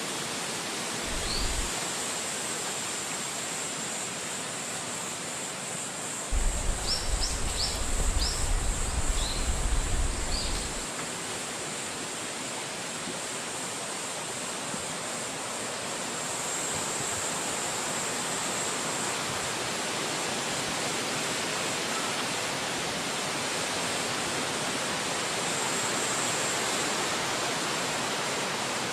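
Wind blowing through a forest, a steady rushing hiss. Gusts buffet the microphone as a low rumble about a second in and again from about 6 to 11 seconds, and a few short high chirps sound in the same stretches.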